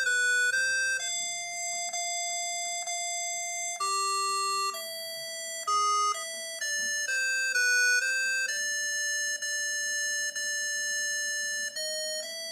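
An old mobile-phone ringtone: a simple electronic melody of single clean notes played through the Xinhua phone's small loudspeaker. The notes step up and down, some short and one held for a few seconds.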